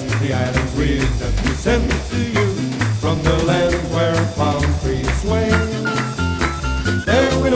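Instrumental break of a Hawaiian-style Christmas song, played by a band over a steady bass beat.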